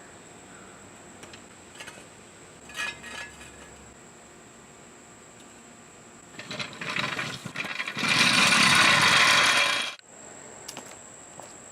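A few light metallic clinks, then a WD-40 aerosol can spraying: short bursts of hiss followed by one loud, steady spray of about two seconds that cuts off suddenly.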